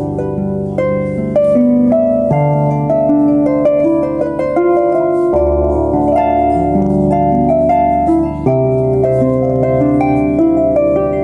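Solo harp playing: a plucked melody with chords over low bass notes that change every second or two, the strings left ringing.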